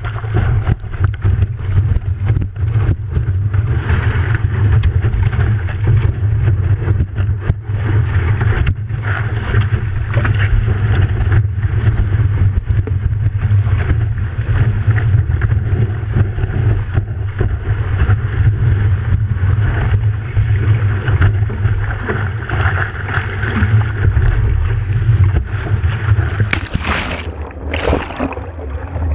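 Rushing water and wind buffeting a board-mounted camera on a stand-up paddleboard riding a wave, a steady low rumble. Near the end the rumble drops and two loud splashes come as the camera goes under water.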